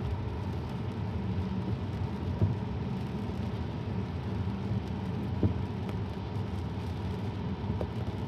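Road and tyre noise heard inside a Tesla's cabin while it drives on a wet, icy road: a steady low rumble with no engine note, and a couple of light knocks.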